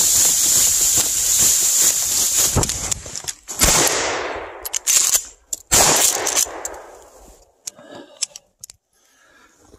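Loud rustling and scraping of clothing against the microphone, then two shotgun shots about two seconds apart, each with a short echoing tail, and a few small clicks afterwards.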